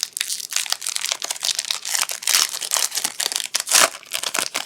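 A trading card pack wrapper crinkling continuously as it is handled and torn open, with a louder crackle near the end.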